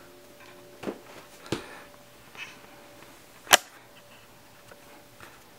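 Cardboard box being handled and knocked about: two light knocks in the first second and a half, then one sharp, loud knock about three and a half seconds in, over a faint steady hum.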